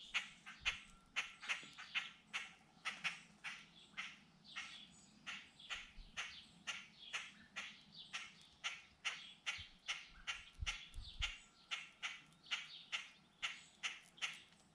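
Blackbirds giving short, harsh alarm calls over and over, about three a second, agitated by a cat nearby.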